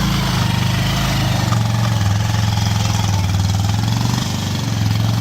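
A vehicle engine running steadily, a low drone.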